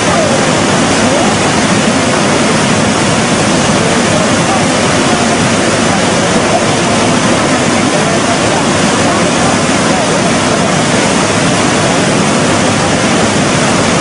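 Swollen, flooded river rushing: a loud, steady wash of water noise that does not let up.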